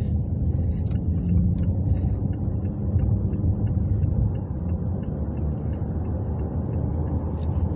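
Steady low rumble of a moving vehicle's engine and tyres, heard from inside the cabin, with a few faint small rattles.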